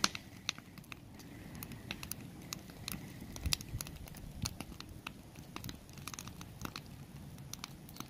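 Log campfire crackling, with frequent sharp, irregular pops over a low rumble.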